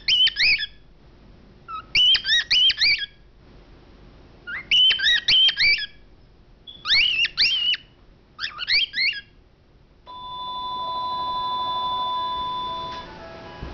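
Pet cockatiel calling in five loud bursts of quick rising chirps over the first nine seconds. About ten seconds in, a steady electronic-sounding tone starts and gives way to music near the end.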